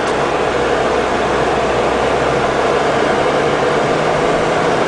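Steady rushing noise inside a moving car in a heavy storm, with a low engine hum underneath.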